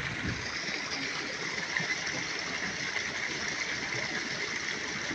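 Small stream of water running steadily, an even rushing sound without breaks.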